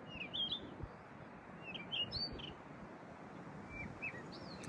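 Small birds chirping in several short phrases over a steady rush of wind noise.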